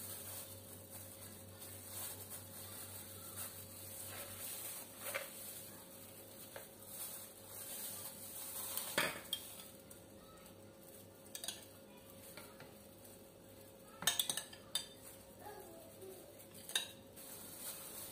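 A metal spoon clinking and scraping in a bowl as a cream mixture is spooned out, with graham crackers being set into a plastic container: scattered sharp clinks and taps, the loudest a quick cluster about fourteen seconds in. A faint steady hum runs underneath.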